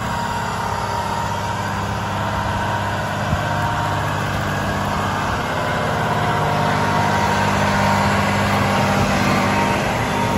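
John Deere 8R 250 tractor's diesel engine running steadily under load as it pulls a chicken litter spreader, growing louder as it draws close.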